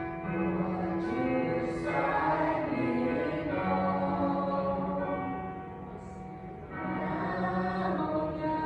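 Choral music: voices singing long, sustained notes, with a dip in loudness about two-thirds of the way through.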